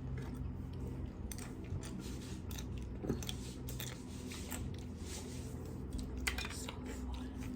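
Close-up chewing and crunching of food, a run of short irregular crackles and clicks.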